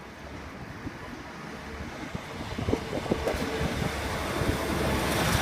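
Class 156 Sprinter diesel multiple unit approaching and running over the crossing, growing steadily louder, with a few sharp knocks from its wheels.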